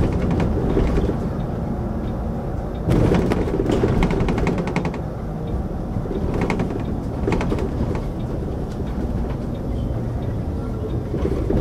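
City bus running along a road, heard inside the cabin: a steady low engine and tyre rumble. Rattles and clicks from the bus come through over it, in a dense cluster about three to five seconds in and again briefly a couple of times after.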